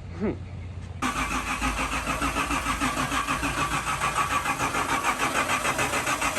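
Truck engine cranking over on its starter in an even pulsing rhythm of about five beats a second, starting about a second in and stopping abruptly after about five seconds without catching.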